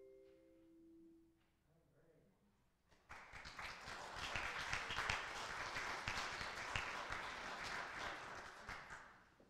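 The last chord of chimes rings on and fades away over the first second or so. After a short pause the congregation applauds for about six seconds, and the clapping dies away near the end.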